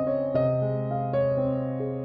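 Soft background music: a gentle electric-piano melody, one note after another every quarter to half second.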